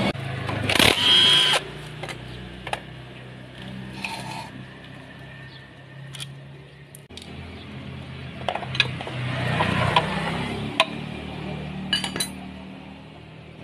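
Hand tools and bolts clinking and clicking against the aluminium engine cover of a Yamaha Aerox 155 as its 8 mm cover bolts are undone and the cover is worked loose. A short loud burst of tool noise comes about a second in, followed by scattered sharp metal clicks.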